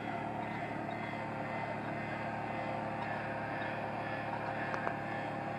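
Fishing boat's engine running steadily at a constant speed, with one faint tick near the end.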